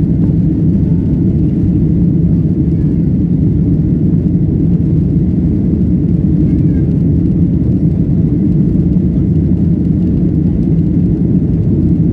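Boeing 737-800's CFM56 turbofan engines and airflow heard from inside the passenger cabin during takeoff: a steady, loud low rumble.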